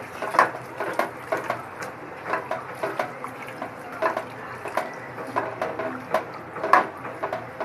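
Hands mixing raw beef liver pieces with oil and spice paste in a pan: frequent, irregular wet squishing noises.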